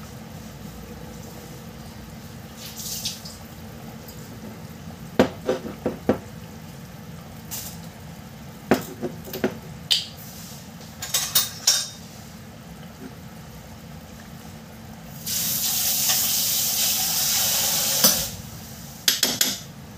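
Chili garlic oil bubbling in a steel pot, with scattered clinks and knocks against the pot. About fifteen seconds in comes a loud, steady hiss that lasts about three seconds and stops abruptly.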